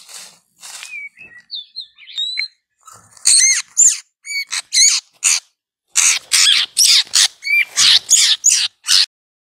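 White-rumped shama calling: a few soft whistled notes, then from about three seconds in a rapid run of loud, harsh calls mixed with short whistles, stopping shortly before the end. The calls come from a shama just caught in a trap net beside a caged decoy shama.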